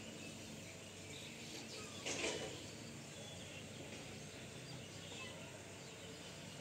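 Faint outdoor rural ambience with scattered distant bird chirps. A brief louder noise about two seconds in.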